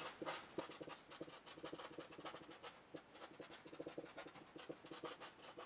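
Felt-tip marker writing on paper: faint, quick scratchy strokes as letters are written out one after another.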